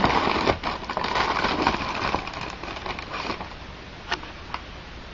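Rustling and crinkling of packaging as a netbook is lifted out of its cardboard box and plastic wrapping, busiest over the first couple of seconds and then quieter, with two sharp clicks about four seconds in.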